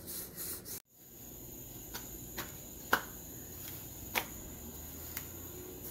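A few light taps and clicks from a wooden rolling pin and hands working and lifting thin rolled paratha dough, the loudest about three seconds in, over a faint steady hiss.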